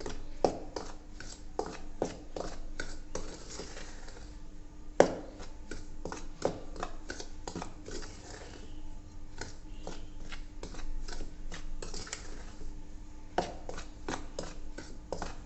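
Steel spoon stirring dry flour and semolina in a stainless steel bowl: repeated clinks and scrapes of the spoon against the bowl, with one sharper knock about five seconds in.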